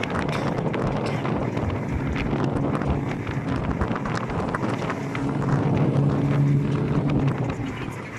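Road traffic noise with wind buffeting the microphone. A vehicle's low engine hum grows louder in the second half, then fades near the end.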